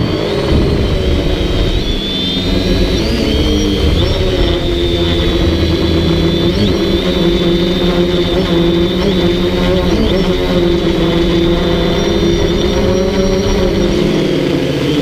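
DJI Flame Wheel F450 quadcopter's electric motors and propellers whining steadily, the pitch wavering with small rises and dips as the throttle changes.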